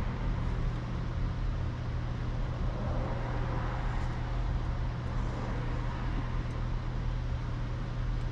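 Steady low machine hum with an even hiss of shop background noise, and a few faint light clicks.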